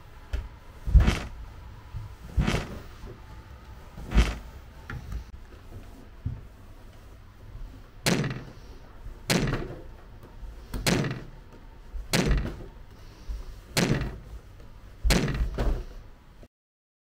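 A child bumping down wooden stairs on her bottom, with a dull thump as she drops onto each step. There are about nine thumps, roughly one every second and a half, with a longer pause after the third.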